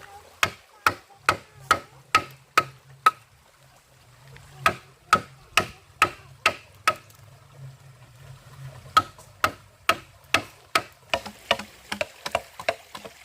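Wood or bamboo being struck with a tool in a steady series of sharp knocks, about two a second, pausing briefly twice.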